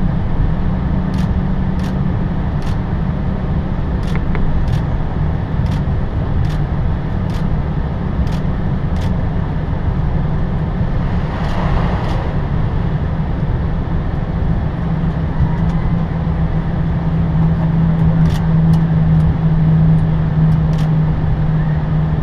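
Airliner cockpit noise during taxi: steady engine and air-conditioning hum. About halfway through comes a brief rush of water-cannon spray hitting the windshield as the aircraft passes through a fire-truck water salute.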